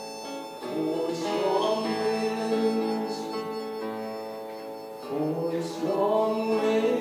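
Live folk music: acoustic guitar strummed under long held notes, with fresh strums about a second in and again about five seconds in.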